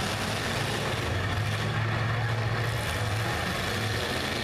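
Engines of several demolition derby cars running at once, a steady low drone with no single crash standing out.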